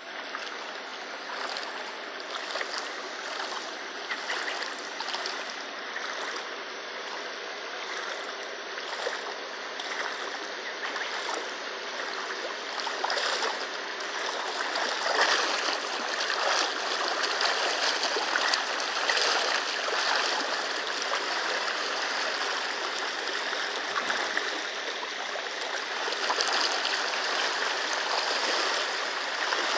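Muddy floodwater rushing across a road: a steady rushing noise that grows a little louder partway through.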